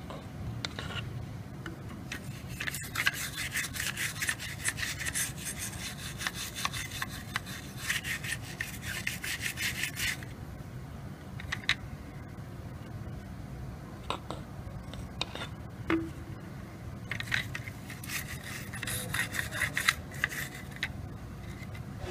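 Rapid scrubbing strokes on a small object, in two spells of several seconds each. A few scattered clicks and taps come between the spells, over a steady low hum.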